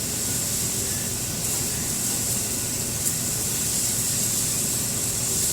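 Steak and fried rice sizzling steadily on a hot flat-top griddle, with a light click about three seconds in.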